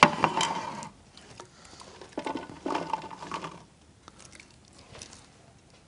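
Fresh green chillies rustling in a glass bowl as they are handled and tipped out, with the bowl knocking on the counter. It opens with a sharp clack, then comes in two short bursts of rustling and clatter.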